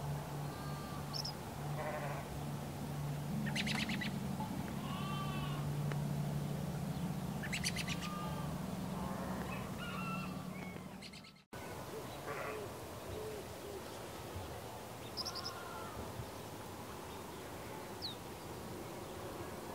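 Birds calling with short, scattered chirps, over a steady low hum that cuts off abruptly about halfway through.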